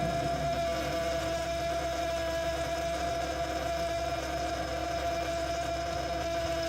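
Frigidaire Gallery refrigerator running with a steady humming whine, one clear mid-pitched tone over a low hum: one of the abnormally loud noises that two repair attempts have not cured.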